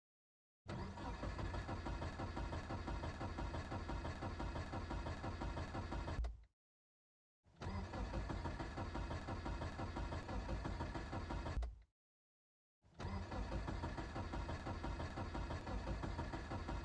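A car's starter cranking the cold engine in three separate tries of about four to six seconds each, with a fast pulsing beat. The engine does not catch, and each try stops abruptly.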